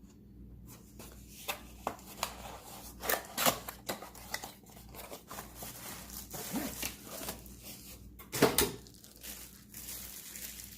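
Packaging being torn open and crinkled while a kitchen utensil is unwrapped: irregular rustling and crackling, loudest about eight and a half seconds in.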